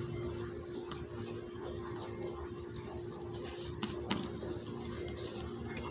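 Quiet hand-handling of a whole raw mojarra on a plastic plate as garlic and salt paste is rubbed into its skin, with a couple of soft clicks, over a steady low hum.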